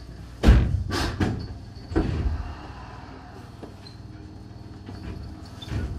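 Entetsu electric train's sliding passenger doors closing: two heavy thuds about half a second apart, a third about two seconds in, and a softer one near the end.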